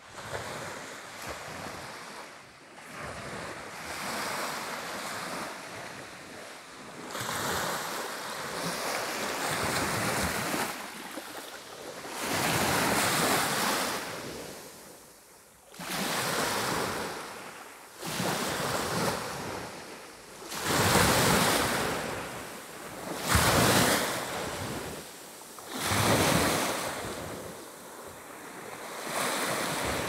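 Black Sea waves breaking and washing ashore, surging and falling back every two to three seconds, with wind buffeting the microphone.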